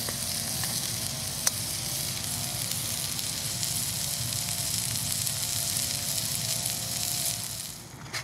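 Ground beef sizzling as it fries in a camping pan, a steady hiss with one sharp click about a second and a half in. The sizzle drops off near the end.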